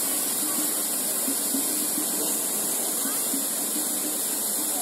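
Fountain jet splashing into its stone basin: a steady hiss of falling water and spray.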